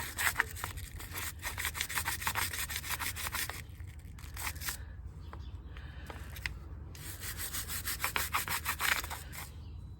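Hand brush scrubbing a motorcycle brake caliper in quick back-and-forth strokes, in two spells with a quieter pause in the middle.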